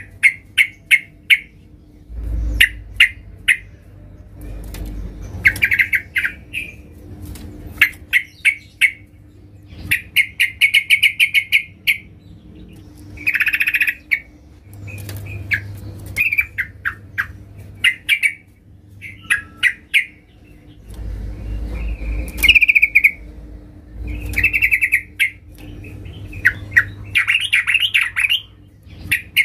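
Female yellow-vented bulbul (trucukan) calling to a male: bursts of rapid, chattering notes repeated every second or two.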